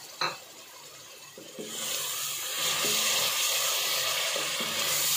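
A short knock near the start, then about a second and a half in, a little water poured into a pot of spiced masala frying in ghee hits the hot fat and sets up a loud, steady sizzle.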